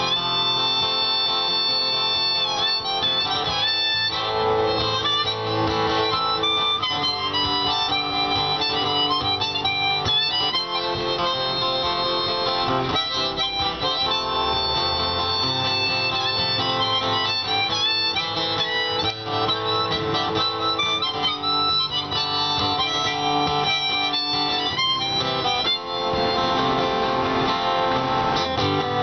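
Harmonica solo played from a neck rack over a strummed acoustic guitar: an instrumental break in a folk song.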